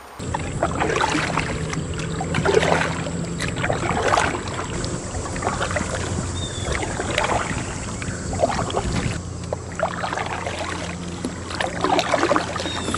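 Canoe paddle strokes in the water, a splash-and-pull about every one and a half seconds, over a steady low hum.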